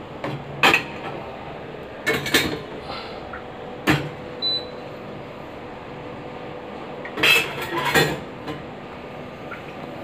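Stainless steel vessels and the wire rack of a dishwasher clinking and clattering as they are handled, in several short bursts.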